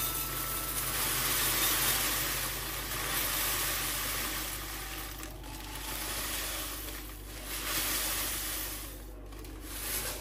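Dry cornflakes pouring from a plastic bag into a tall glass jar: a steady rustling patter of flakes against the glass and the bag crinkling. It dies down near the end.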